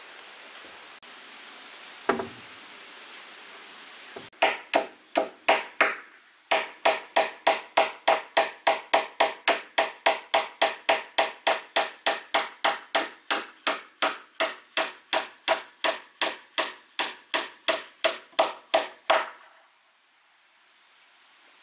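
A hand tool striking wood in rapid, even blows, about three a second. A single knock comes first, then a short run of strikes about four seconds in, then a long steady run that stops abruptly about two seconds before the end.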